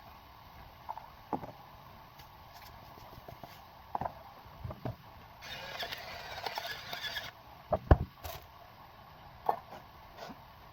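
Kitchen clatter of utensils and cookware: scattered knocks and clicks, the loudest about two thirds of the way through. A short hiss lasts a couple of seconds around the middle.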